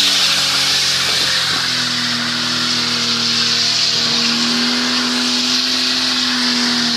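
BMW E30's engine held at high revs while its rear tyres spin and screech on the tarmac in a smoky burnout drift. The engine note is steady and steps up slightly in pitch about one and a half and four seconds in.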